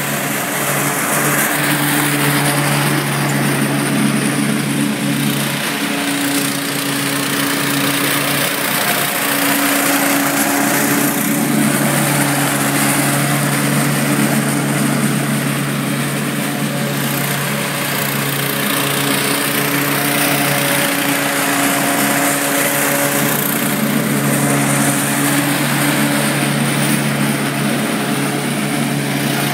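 eXmark Metro 48 walk-behind commercial mower running steadily at mowing speed while cutting grass, its engine holding an even note throughout.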